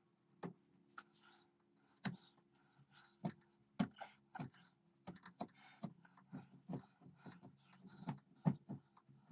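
Carving knife cutting into a wooden dagger handle clamped in a vise: short, sharp, irregular cutting and scraping strokes, coming closer together after the first few seconds, over a faint steady hum.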